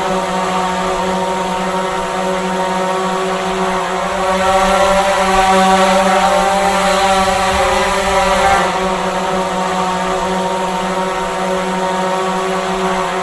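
Drone flying, its propellers giving a steady buzzing whine made of several pitches that waver slightly, growing a little louder for a few seconds in the middle.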